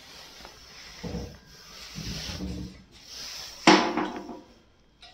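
Aluminium-profile kitchen cabinet doors being handled: rubbing and knocking, with one sharp bang about three and a half seconds in.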